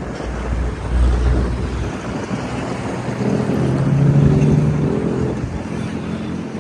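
Motor vehicle passing close by in road traffic: a low rumble, then an engine hum that swells to its loudest about four seconds in and fades.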